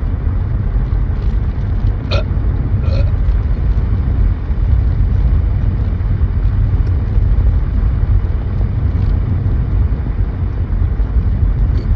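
Steady low road-and-engine rumble inside a moving car's cabin, with two short burps about two seconds in and again a second later.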